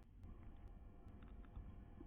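Near silence: a faint steady low hum from the microphone's background, with a few faint clicks.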